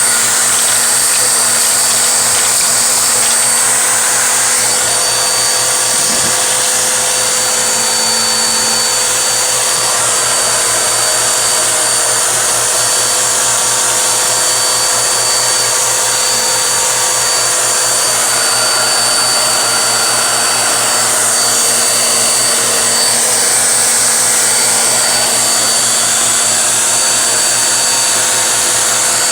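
Vacuum cleaner running steadily, a loud, even rush of air with a thin high whine held throughout.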